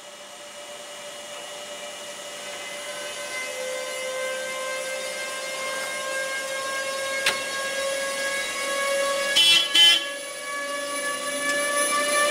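EU07A electric locomotive pulling away under power. Its traction equipment whines in several steady tones that slowly rise in pitch and grow louder as it accelerates. About two-thirds of the way in come two short, loud blasts on its horn.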